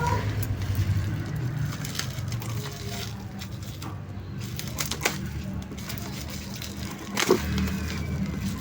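Phone box and packaging being handled during unboxing: crackling of packaging with a few sharp clicks, the loudest about 7 seconds in, over a steady low hum.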